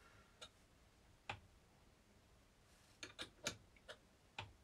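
Near silence broken by a handful of faint, sharp clicks and light taps as hands handle the front suspension parts of a Genius FR2 radio-controlled model car.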